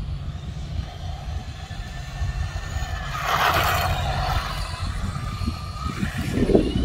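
Radio-controlled rally car running on asphalt, its motor whining and tyres hissing, loudest about three to four seconds in, over a steady rumble of wind on the microphone.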